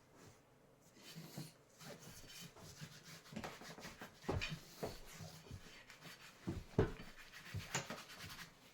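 Grease brush being worked over a tire bead and the rim's groove: soft, irregular rubbing strokes, with a few sharper clicks.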